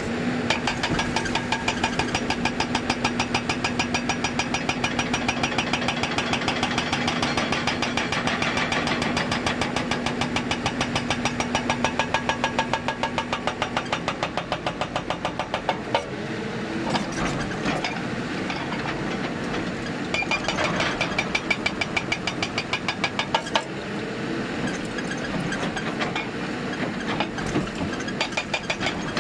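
Hydraulic breaker on a Hyundai 290 excavator hammering rock in rapid, evenly repeated blows over the excavator's diesel engine. A steady hum under the blows drops out about halfway.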